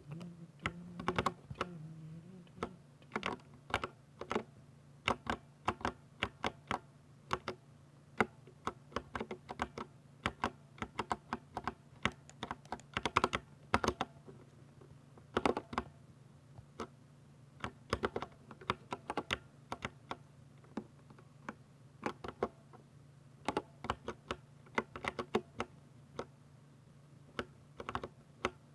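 Typing on a Ducky 60% mechanical keyboard with silver linear switches: quick irregular runs of keystrokes with short pauses between them. A faint steady low hum runs underneath.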